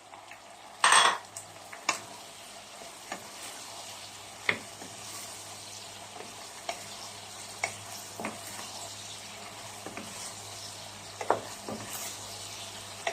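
A spatula stirring in a pan of simmering sauce and vegetables, with a steady sizzle and scattered sharp clinks of the utensil against the pan. There is a louder clatter about a second in.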